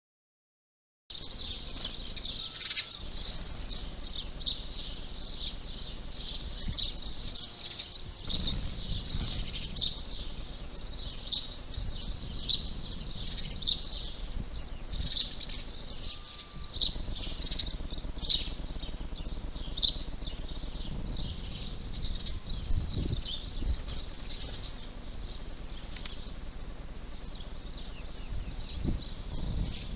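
House sparrows chirping, short sharp chirps about once or twice a second over a steady high-pitched trill, starting about a second in.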